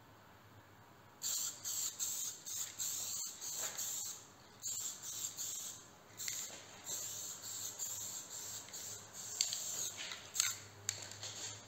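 Etch primer being sprayed in many short bursts of hiss, starting about a second in.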